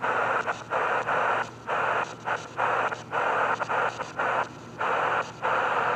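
Shortwave static from a portable cassette radio with a broken antenna: a loud hiss that cuts out briefly again and again.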